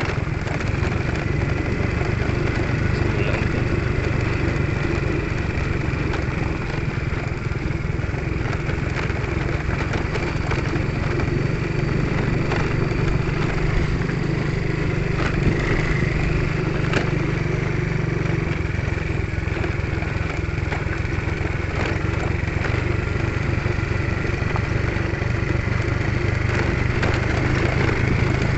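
Small motorcycle engine running steadily while under way, a continuous low drone.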